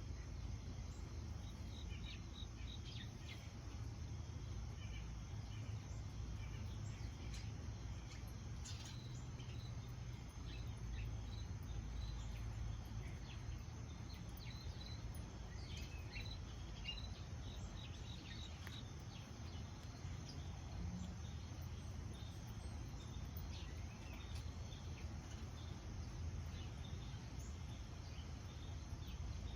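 Small birds chirping and calling in short, scattered notes over a steady low background rumble.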